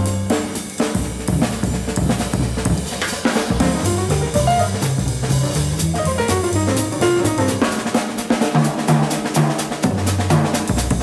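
Live jazz quartet with drum kit and upright bass to the fore, the drums busy on snare and bass drum over moving bass notes. The piano's dense run breaks off at the start and gives way to a few scattered notes.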